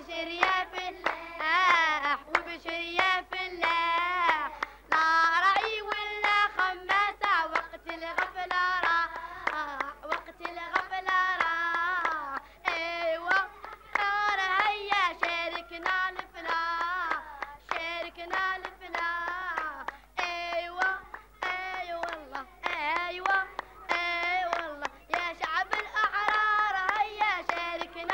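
Young girls singing a song while clapping their hands in rhythm.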